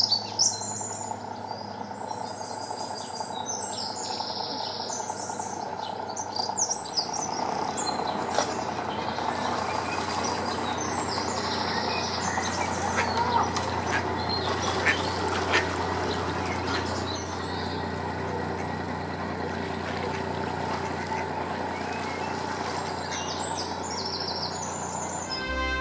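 A narrowboat's diesel engine runs steadily as the boats pass close by, with small birds singing at the start and near the end. Ducks quack briefly now and then in the middle.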